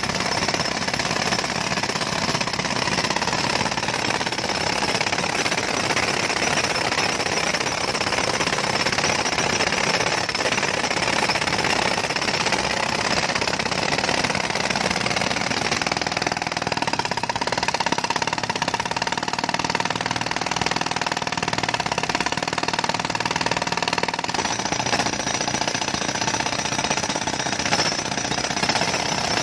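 Jackhammer breaking up a road surface, hammering rapidly and without a pause.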